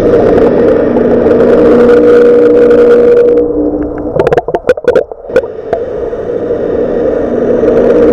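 Steady electronic droning hum with a few held tones, the sound emitted underwater by a seaweed pest repellent device to drive off herbivorous fish. About four seconds in it is broken for a second or so by a cluster of knocks and crackles with brief dropouts, then the drone resumes.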